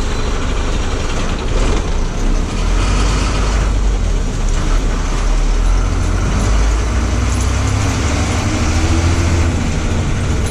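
Ashok Leyland bus's H-series diesel engine running under way, heard from the driver's cab with road noise. A steady low rumble rises in pitch about eight seconds in as the bus pulls.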